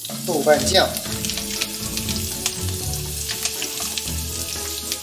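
Chopped scallions, ginger and garlic hitting hot oil in a stainless steel pot and sizzling, with a louder burst in the first second as they go in and small crackling pops throughout.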